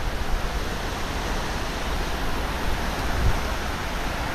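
Hurricane wind and rain: a steady rushing noise, with gusts buffeting the microphone in irregular low rumbles, strongest about three seconds in.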